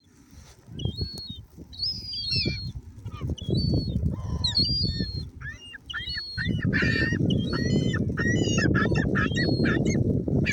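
A flock of seagulls calling, short sharp cries scattered at first, then many overlapping in quick succession from about six seconds in. Under them runs a low rushing noise that grows much heavier at about the same point.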